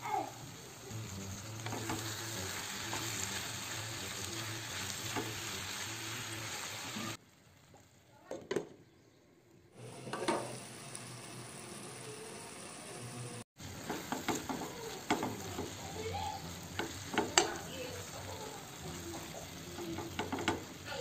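Beef kidneys with tomato and peppers sizzling in a frying pan. Partway through, the sizzle drops away for a few seconds, broken by one clink as a glass lid goes on the pan. In the second half a wooden spoon stirs and scrapes through the pan, with many small clicks over the frying.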